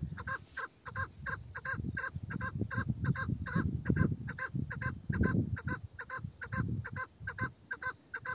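A chukar partridge hen, an old decoy (meri) bird with a male-like voice, calling in a steady run of short notes about three a second. A low rumbling noise runs underneath.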